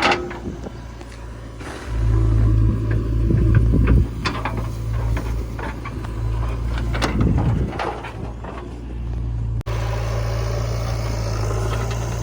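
Heavy diesel engine running, growing louder for a couple of seconds about two seconds in as it works under load, with scattered knocks and clatter. The sound drops out for an instant near the end, then the engine carries on steadily.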